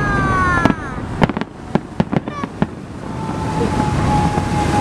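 Festive fireworks salute: a quick series of sharp bangs and crackling pops from the bursting shells, most of them in the first three seconds.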